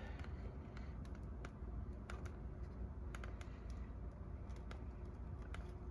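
Faint, irregular crackles and small snaps of a fireplace fire just lit, with oil-soaked paper towels and dry kindling sticks catching.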